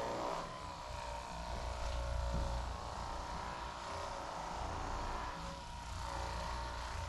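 Electric massage device motor running with a steady hum.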